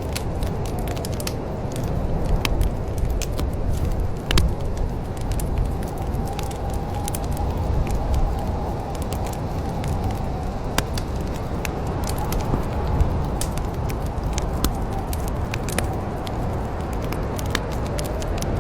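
Wood fire crackling, with frequent irregular sharp pops and snaps over a steady low rumble of the flames, one louder pop about four seconds in. A faint wavering whistle sits in the background.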